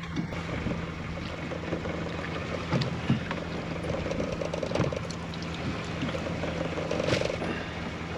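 Small fishing boat's engine humming steadily, with water noise and a few sharp knocks and rattles aboard.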